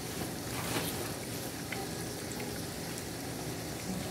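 Chunks of ahi tuna frying in hot oil in a skillet: a steady sizzle with a few faint ticks.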